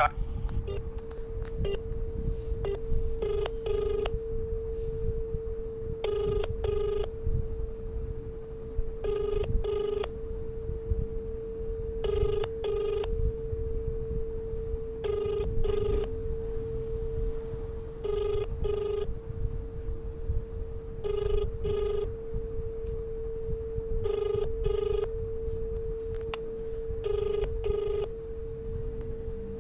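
Telephone ringback tone coming out of a smartphone speaker during a call to the police helpline: short double rings repeating about every three seconds over a steady tone. The call is ringing through and has not yet been answered by an operator.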